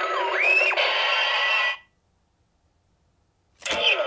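CSM Decadriver toy transformation belt playing its KamenRide Kiva sound effect: electronic sweeping, rising and falling tones with the belt's voice calling "Kiva", cutting off about two seconds in. Near the end, after a silence, a click as the buckle is turned and the belt starts another electronic sound.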